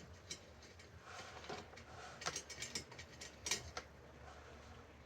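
Faint, irregular metallic clicks and ticks from spoke nipples being loosened on a bicycle wheel, the spoke wrench and spokes ticking as each nipple turns, with a few sharper clicks in the middle.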